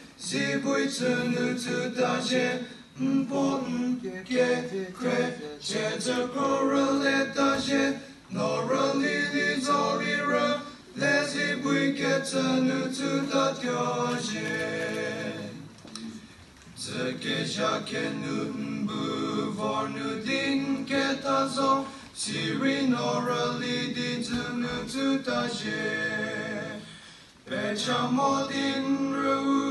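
Male vocal ensemble singing a cappella in several parts, in sung phrases with short breaks between them, the longest about halfway through.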